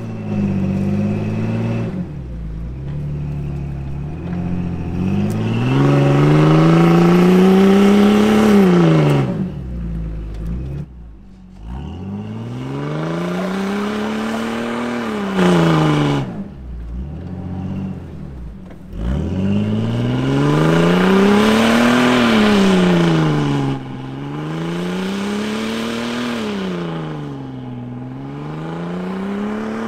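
Recovery vehicle's engine revving up and down over and over under load while it drags a side-by-side up a sandy river bank on a tow rope. The pitch climbs for a few seconds and then falls, about six times.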